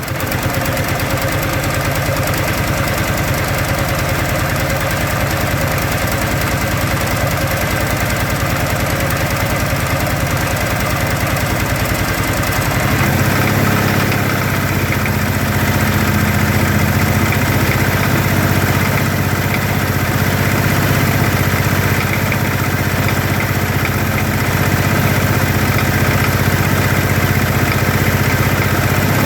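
Kawasaki Teryx side-by-side's engine running with a rapid, steady knocking, which the owner cannot place between the engine and the clutch. About a third of the way in the engine note changes and then holds steady.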